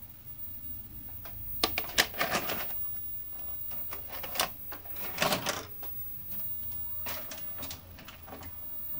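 A VHS cassette being pushed into the tape slot of a TV/VCR combo: several clusters of plastic clicks and clunks as the tape and the loading mechanism go in.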